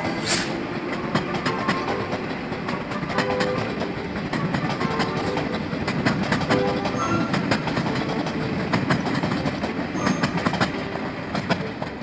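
Locomotive-hauled Taiwan Railway Chu-Kuang passenger train rolling past, its wheels rumbling and clicking over the rail joints with a steady clickety-clack.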